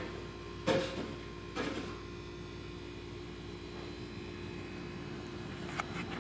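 Steady electrical hum with a couple of short knocks about one and two seconds in.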